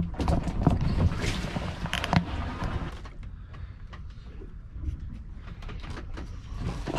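Knocks, clicks and rubbing from an action camera being handled and refitted to its mount. After about three seconds this gives way to a quieter, steady low rumble of wind and water around the boat.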